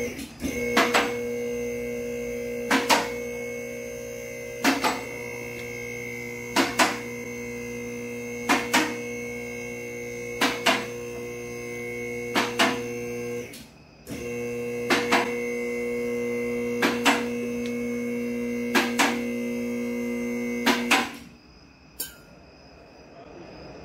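Two-post car lift's electric hydraulic pump motor running steadily as it raises a vehicle, with paired sharp clicks about every two seconds from the safety locks on the two columns. The motor stops for about half a second midway, starts again, and shuts off near the end.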